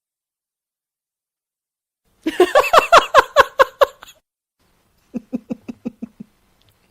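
A woman laughing: about two seconds in, a loud burst of about ten quick "ha" pulses, each falling in pitch, then after a short pause a quieter, lower laugh of about seven pulses.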